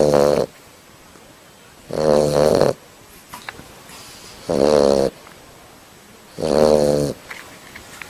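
A sleeping dog snoring in a steady rhythm, one snore about every two seconds. Each snore lasts well under a second and has a clear pitch.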